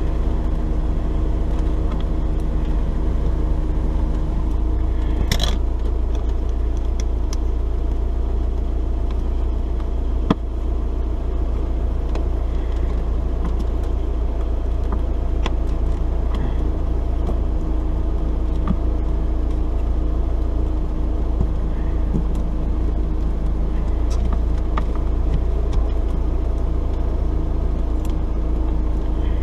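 A steady low mechanical hum, with a few sharp clicks and taps, the clearest about five and ten seconds in.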